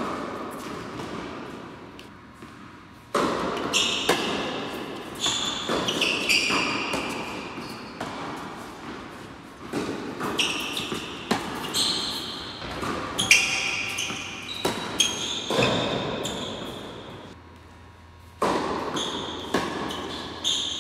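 Tennis rally on an indoor hard court: sharp racket hits and ball bounces every one to three seconds, each ringing out in the echo of a large hall.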